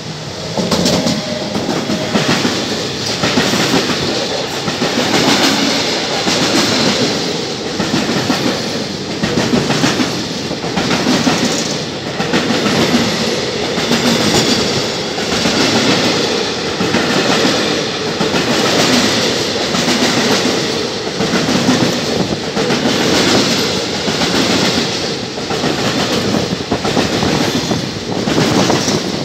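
Container freight train hauled by an E483 electric locomotive running through a station at speed. The noise rises sharply as the locomotive comes alongside, then the container wagons pass with a steady, regular clickety-clack of wheels over the rail joints.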